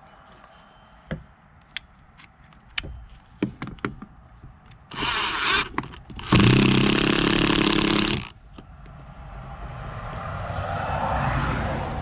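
Power drill driving a mounting screw: a few small handling clicks, a short run about five seconds in, then a louder run of about two seconds that stops abruptly. Near the end a rush of noise swells and fades.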